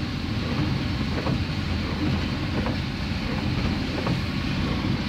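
Car driving in rain, heard from inside: a steady engine and road rumble under the hiss of rain on the windscreen, with a faint tick about every second and a half.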